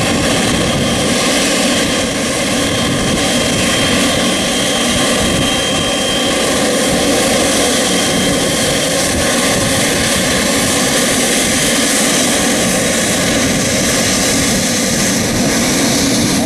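Boeing 777 freighter's GE90 turbofan engines running at taxi power: a steady, loud jet noise with a faint high whine that fades out about halfway through.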